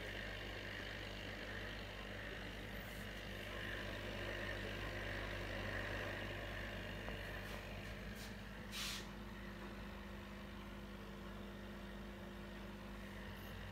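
Small desk reef tank's equipment running: a steady electric pump hum with the hiss of water and air bubbles churning in the protein skimmer. A brief sharp noise comes about nine seconds in.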